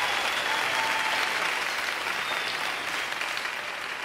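Theatre audience of children and adults applauding, the applause slowly dying down.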